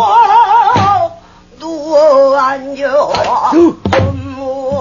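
Female pansori singer holding long, drawn-out vowels with a wide, wavering vibrato. The voice fades out briefly about a second in, then swells back and peaks past the middle. Two low knocks from the accompanying buk drum fall in the line.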